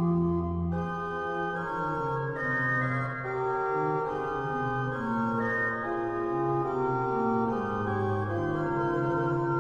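Organ playing a slow classical piece: held chords of steady, sustained notes over a moving bass line.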